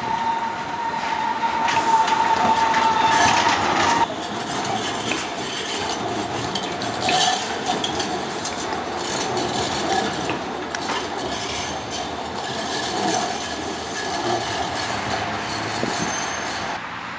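Electric city trams on street track: a steady high wheel squeal as a tram rounds a curve, cutting off suddenly about four seconds in. Then the continuous rolling noise of another tram passing, with fainter squeals.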